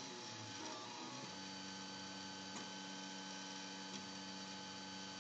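3D printer's stepper motors whining in shifting pitches as the print head moves, settling about a second in into a steady hum of a couple of held tones, with a few faint ticks.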